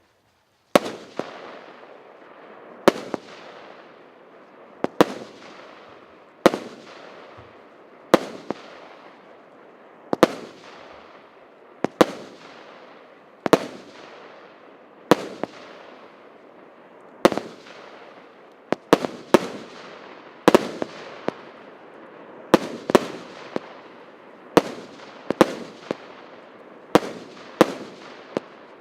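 100-shot consumer firework cake firing its shots one after another: a sharp bang about every one and a half to two seconds, each trailed by a fading hiss, with the shots coming quicker and sometimes in close pairs in the second half.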